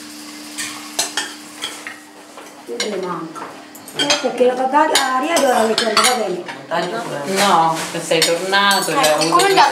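Cutlery clicking and scraping on plates during a meal. Voices talk at the table from about three seconds in.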